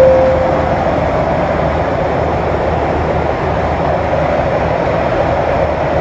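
Steady drone of an airliner cabin, with the fading ring of a flight-attendant call chime dying away in the first second.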